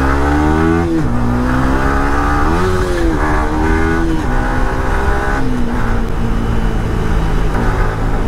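Yamaha R15 V3's 155 cc single-cylinder engine under hard acceleration, heard from the rider's seat: the revs climb, then drop sharply at a gear change about a second in. The note rises and dips a few more times before settling to a steadier pitch in the second half.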